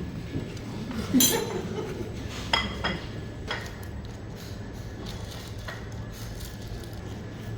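Kitchen utensils and dishes clinking: one loud ringing clink about a second in, then a few lighter clicks and knocks.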